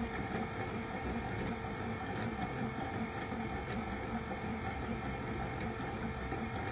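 Hella KL70 rotating beacon running: its small electric motor and gear drive turning the reflector, a steady whirr with a constant hum.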